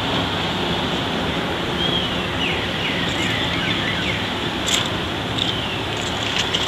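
Steady wind noise rumbling on the microphone, with faint high chirps of small birds a couple of seconds in and a single sharp click about three quarters of the way through.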